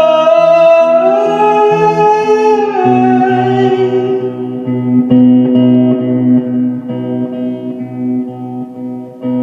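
A voice holding one long sung note over strummed guitar chords. The note slides up about a second in and back down near three seconds.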